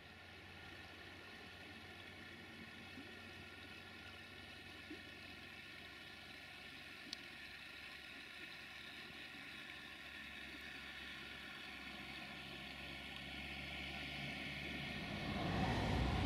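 Faint, steady hum of a distant diesel train engine, growing louder over the last few seconds.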